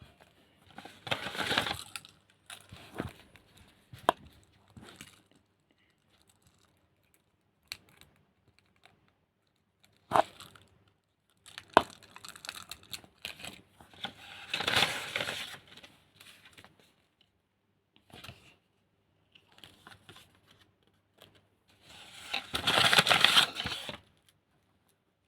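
Packaging being torn open and crinkled by hand in several separate bursts, with a few sharp clicks between them; the longest and loudest tear comes near the end.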